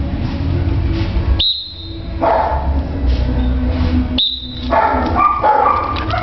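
A dog barking and yelping in short pitched bursts, most of them in the second half. Twice, about three seconds apart, there is a sharp high-pitched tone.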